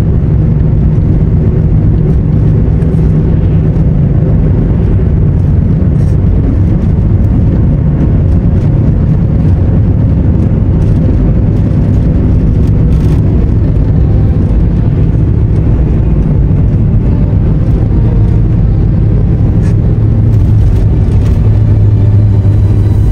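Car driving on studded winter tyres, with a steady drone of engine and tyre noise that holds an even level throughout.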